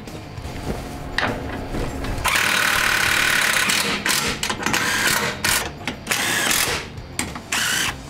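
Cordless power tool driving crossmember mounting bolts: one steady run of about two seconds, then a string of short trigger bursts as each bolt snugs down. A few metal clicks come before it as the crossmember and bolts are fitted.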